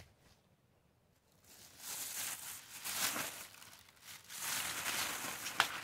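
Plastic shopping bag crinkling and rustling as hands rummage through a plastic storage box, starting about a second and a half in, with a sharp click near the end.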